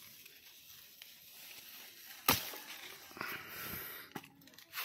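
Brinjal (eggplant) being plucked from the plant: a single sharp snap about two seconds in, then a rustle of leaves and stems with a few small clicks.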